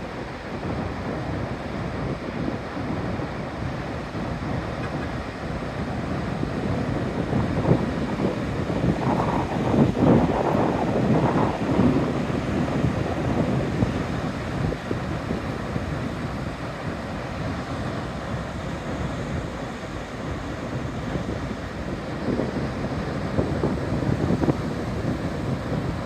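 Large surf waves breaking and rolling up the beach, under heavy wind buffeting the microphone. A louder surge about ten seconds in.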